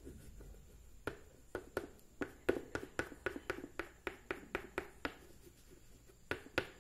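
White oil pastel being rubbed on paper in a run of short strokes, about three a second, pausing briefly near the end before a few more.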